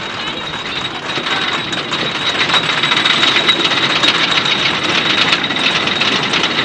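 Roller coaster rattling along its track: a fast, even clatter that grows louder over the first few seconds, over a steady high whine.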